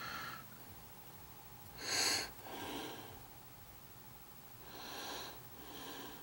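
A person breathing through the nose close to the microphone, two slow in-and-out breaths, the first the loudest.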